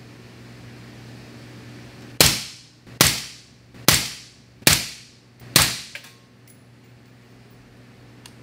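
Five suppressed shots from a 5.56 Daniel Defense Mk18 fitted with an AB 7.62 Raptor 8 suppressor, fired about one a second. Each is a sudden report that dies away in under half a second.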